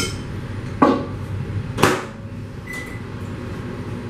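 Hamilton Beach countertop microwave being shut and started: a few sharp knocks as the door closes, a single short keypad beep nearly three seconds in, then the oven running steadily.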